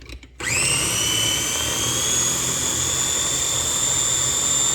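Electric food processor switched on, its motor whining up to speed within a moment and then running steadily while it purees chickpeas.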